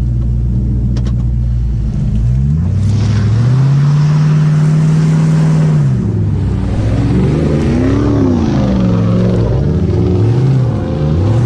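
Jeep Grand Cherokee 4.7-litre V8 through a Flowmaster 40 Series exhaust working through mud. It runs steadily at first, revs up hard about two seconds in and holds there, drops back near six seconds, then rises and falls through several shorter revs and climbs again near the end.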